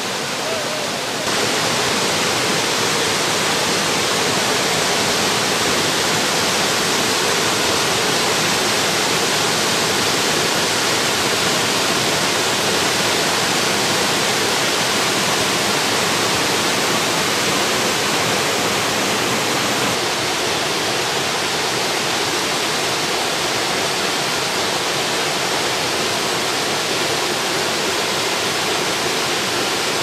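Small waterfall spilling over rock ledges into a pool: a steady rush of water that gets louder about a second in and drops a little about two-thirds of the way through.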